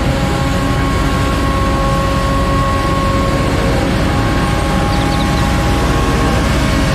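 Street sweeper truck working along the curb: its engine and sweeping gear run as a loud, steady noise with a few held whining tones, and the side gutter broom scrubs the pavement.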